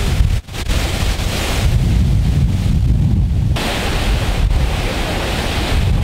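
Water rushing over the partially frozen Paterson Great Falls, an even rushing noise, with wind buffeting the microphone in low, gusty rumbles. The sound drops out briefly about half a second in, then returns.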